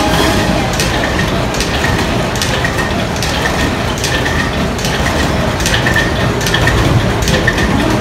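Irregular clacks and slaps, a couple a second, from cutout hands on coiled springs being slapped and springing back, over a steady din of people in the room.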